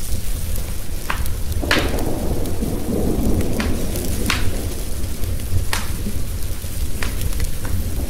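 Wood fire crackling in a fireplace, with sharp pops about every second, over a constant low rumble of thunder and the hiss of rain. A louder roll of thunder swells about two seconds in.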